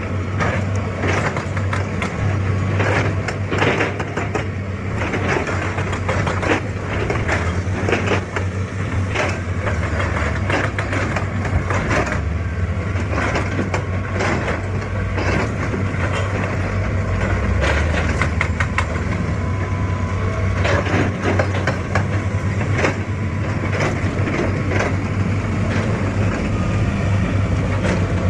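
Excavator's diesel engine running with a steady low hum, overlaid by many clanks and knocks of metal and rock as the machine works.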